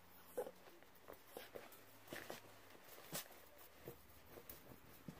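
Faint rustling and scattered soft clicks as a dog mouths and nuzzles a plush toy on a cushion.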